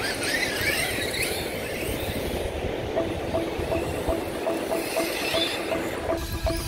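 Electric RC monster trucks running hard through loose sand, their motors whining and rising and falling in pitch over a steady rush of noise. About halfway, a regular pulsing tone comes in, about three beats a second.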